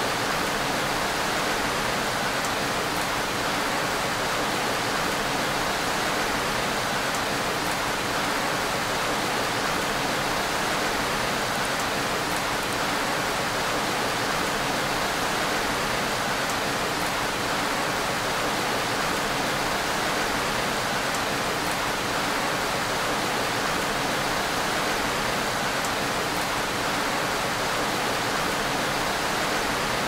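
Steady gentle rain: an even, unbroken hiss with faint scattered drop ticks.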